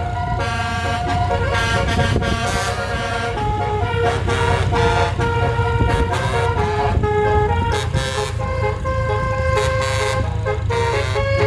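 Tour bus telolet musical air horns playing a tune of short notes that step up and down in pitch, over the steady low rumble of a bus engine.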